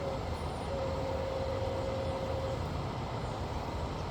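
Steady low outdoor background rumble, with a faint steady tone held for about two seconds near the middle.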